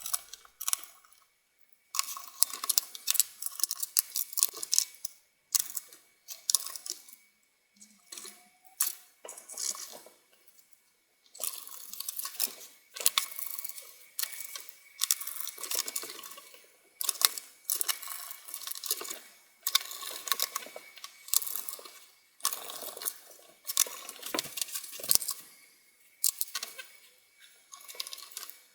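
Irregular clicks, taps and rattles of small plastic and metal parts being handled as a laptop is reassembled: screws and the back cover going back on. A faint steady high tone sits underneath.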